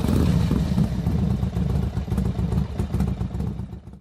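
Motorcycle engine running steadily with a rough, uneven beat, then cutting off suddenly near the end.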